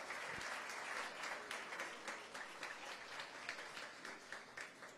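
Audience applauding, the claps thinning out and fading away toward the end.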